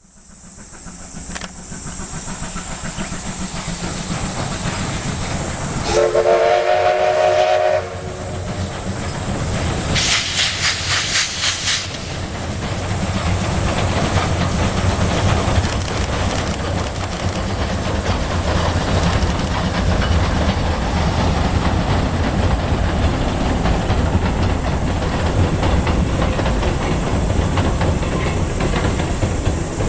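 Steam-hauled train running with a steady rumble and rail clatter. About six seconds in, the locomotive's steam whistle blows one chord-like blast of nearly two seconds, and a few seconds later comes a brief burst of hissing.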